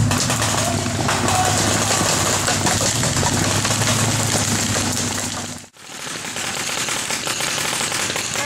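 A paintball tank's engine running steadily with a low hum. It cuts off abruptly about six seconds in, giving way to a rougher, noisier outdoor sound.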